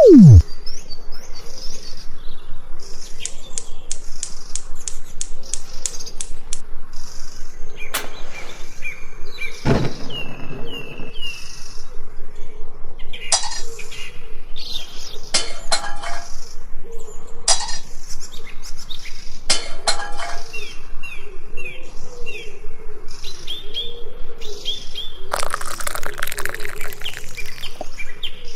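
Birds chirping, with scattered sharp clicks and clinks.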